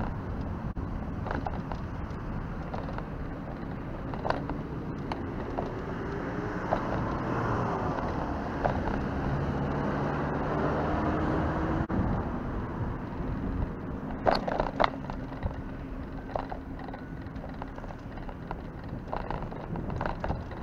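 Wind noise on the microphone of a camera mounted on a moving bicycle, with tyre and road noise and traffic passing on the road alongside, strongest around the middle. A few sharp knocks about two-thirds of the way in as the bike rattles over bumps in the path.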